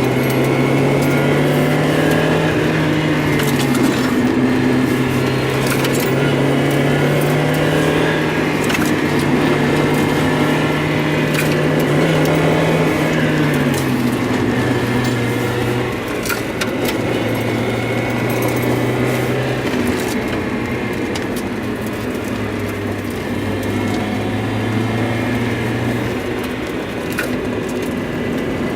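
Mazda Miata's four-cylinder engine running, its pitch stepping and wandering up and down rather than holding steady, with scattered short ticks; the car has a stumble and misfire.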